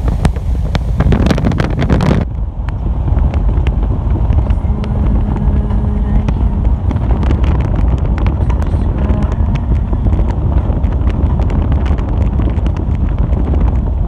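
Steady low rumble of a car driving at speed, with wind buffeting and crackling on the microphone. A louder rush in the first two seconds cuts off abruptly.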